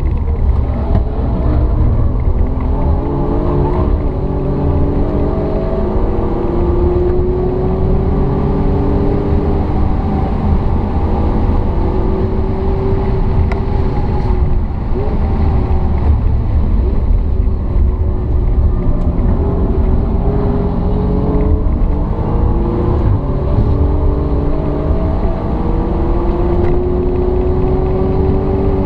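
Alfa Romeo Giulia Quadrifoglio's twin-turbo V6 heard from inside the cabin under hard driving. Its pitch climbs, drops back and climbs again several times as it pulls through the gears, over a steady low rumble.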